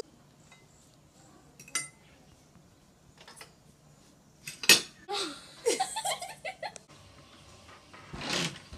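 Spoons and forks clinking and scraping on ceramic plates while eating, a few sharp clinks standing out, the loudest about halfway through. A voice, with what may be laughter, is heard briefly between about five and seven seconds in.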